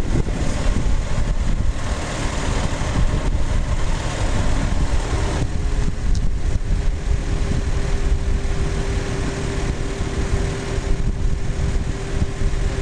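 Steady low engine rumble with wind noise on the microphone; a steady hum joins about five seconds in.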